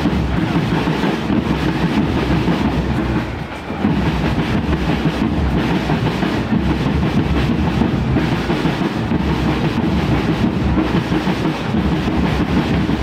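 Marching drums beating a dense, continuous clattering rhythm, loud and close, with one brief dip about three and a half seconds in.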